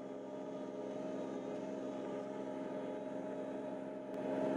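Diesel engine of a homemade 4x4 tractor running at a steady speed while driving, a constant engine drone that grows a little louder near the end.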